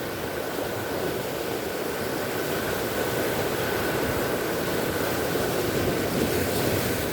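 Ocean surf washing up the shore, a steady rush that swells over several seconds and eases near the end.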